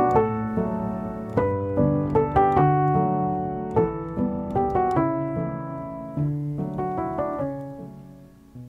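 Background piano music, fading out near the end.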